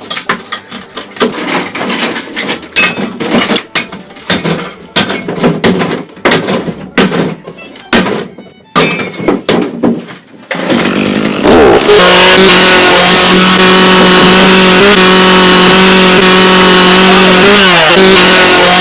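Irregular knocking and banging of metal work for about ten seconds. Then a loud motor starts with a steady high whine, runs for about six seconds, and winds down near the end.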